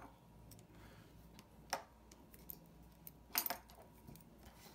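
A few sharp, small metallic clicks and clinks as watchmaking tools and a metal movement holder with a watch movement are handled, the loudest a quick cluster about three and a half seconds in.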